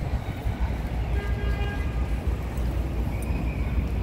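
Busy city street ambience: a steady low rumble of traffic, with a few faint high-pitched tones about a second in.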